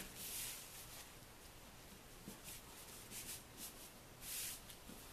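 Fingertips rubbing and pressing along a folded paper napkin, smoothing the crease flat: several soft, faint papery swishes.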